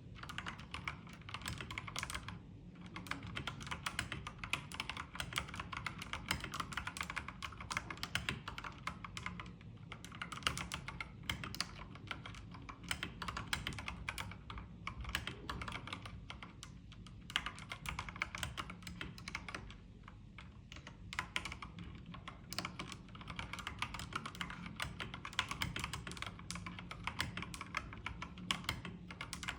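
Typing on an Akko 3098B mechanical keyboard with Akko CS Jelly Pink linear switches: a dense, fast run of key clicks and bottom-outs, broken by a few brief pauses.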